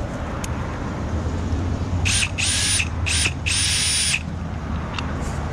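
Cordless drill-driver whirring in four short trigger bursts, about two to four seconds in, driving screws into an irrigation valve's bonnet.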